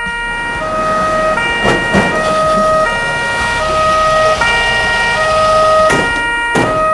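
Two-tone emergency-vehicle siren wailing, alternating between a high and a low pitch, over the noise of the car. Near the end come two sharp thumps, likely from the car's door as someone climbs out.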